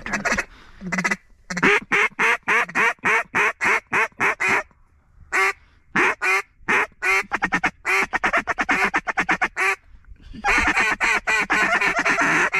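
Duck call blown in runs of rapid, loud mallard-style quacks to work ducks toward the decoys. There are three runs, the last faster and denser.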